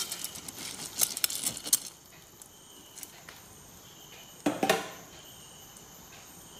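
Washed raw rice tipped from a container into a metal pressure cooker of chicken gravy: a few light clicks of the container against the cooker in the first two seconds, then a louder knock and short rush of rice about four and a half seconds in.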